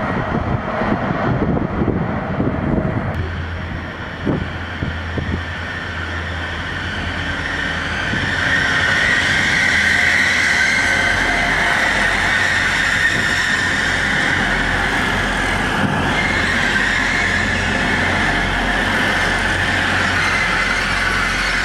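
A train rumbles past in the first few seconds. Then a First Hull Trains Class 180 diesel multiple unit moves slowly alongside the platform with a steady engine and wheel sound and a high-pitched squeal.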